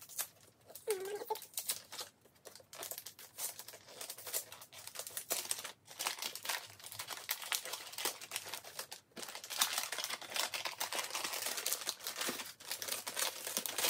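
Wrapping paper crinkling and tearing as a gift-wrapped book is opened by hand, in irregular crackles that grow louder and denser over the last few seconds.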